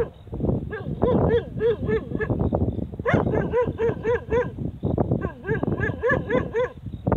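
A dog barking in quick runs of several barks each, separated by short pauses. Each bark rises and falls in pitch.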